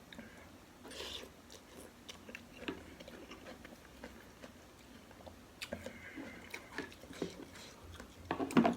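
Close-miked eating of bakso: chewing and biting with scattered wet mouth clicks, and a louder burst of eating noise near the end.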